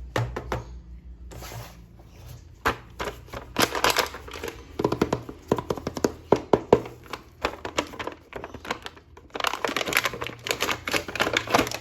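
Hands handling plastic toy packaging and action-figure parts: an irregular run of clicks, taps and crinkles, busiest in two stretches a few seconds apart.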